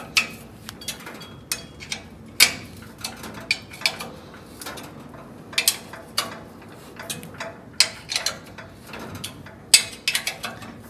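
Hand ratchet clicking in short, uneven runs as loose bolts on a steel car rotisserie's mounting arms are tightened, with a few louder metal clicks among them.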